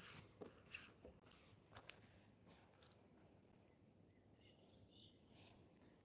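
Faint soft footsteps of sock-clad feet on wooden boardwalk planks during the first two seconds, then a short, high, falling bird chirp about three seconds in, over faint outdoor background.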